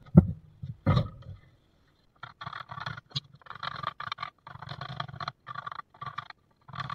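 Two heavy wooden knocks in the first second, then a hand chisel paring along a curved line in a vise-held pallet-wood board: a run of short scraping cuts in quick succession, each lifting a curled shaving.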